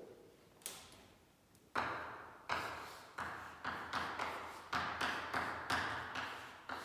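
Chalk tapping and scratching on a blackboard as an equation is written: a run of about a dozen sharp taps, coming faster in the second half, each trailing off in the echo of a large hall.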